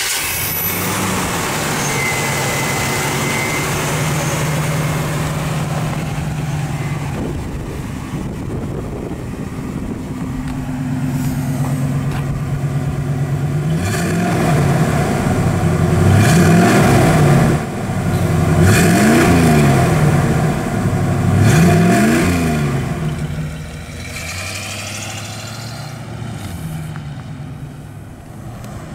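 A fuel-injected 350 cubic-inch small-block Chevrolet V8 idles steadily. About halfway through it is revved several times, its pitch rising and falling with each blip, then it settles back to a quieter steady run.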